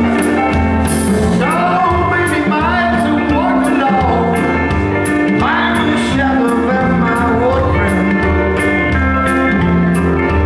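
Live blues band playing: electric guitar, bass guitar and drums, with a steady cymbal beat about twice a second. Bending, sliding guitar notes come through during the first half.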